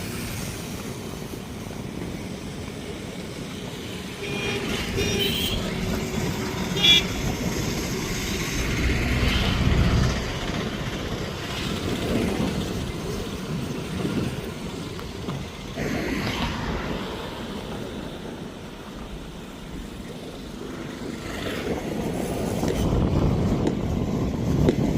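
Road traffic: vehicles passing one after another, with a vehicle horn tooting briefly a few seconds in, over a steady rushing noise.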